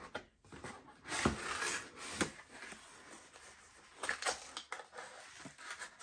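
Cardboard packaging being handled as an insert is lifted out of a box: irregular scraping and rustling with a few sharp knocks.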